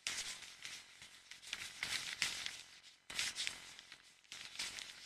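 Faint outdoor ambience: a soft, even hiss with a few faint short high chirps or clicks. It drops out abruptly twice, briefly, about three seconds in and again just past four seconds.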